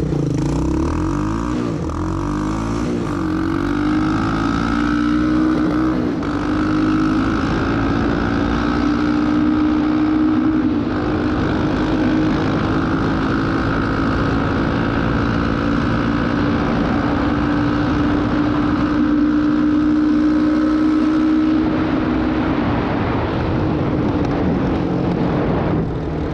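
1986 Honda Fourtrax 200SX ATV's single-cylinder four-stroke engine accelerating hard on a top-speed run, its pitch climbing and dropping with each shift for the first few seconds. It then holds one high, steady note at full speed for a long stretch and falls away near the end as the throttle eases off.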